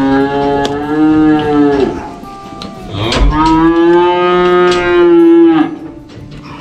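A cow mooing twice in long, loud bellows. The first lasts about two seconds. The second starts about three seconds in and holds a steady pitch for over two seconds before dropping off.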